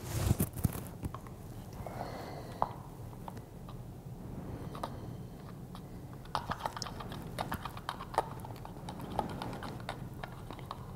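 Light, scattered clicks and taps of a plastic water bottle and its cap being handled, now holding ball clay powder and water, with a brief louder rustle right at the start.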